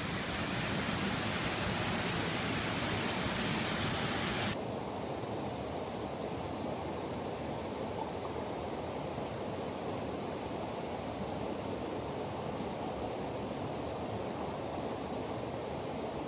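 Steady rush of river water pouring over rocky cascades. About four and a half seconds in, the hiss drops away suddenly, leaving a duller, lower rush.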